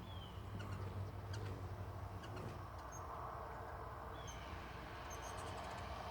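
Hummingbirds giving a few short, high chirps and chips, two of them quick falling notes, over a low steady hum.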